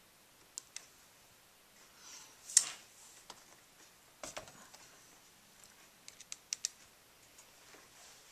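Scattered light clicks and taps of a small Phillips screwdriver on the screen-bracket screws and of hands handling a laptop's plastic screen lid, with one sharper knock about two and a half seconds in and a quick run of clicks near the end.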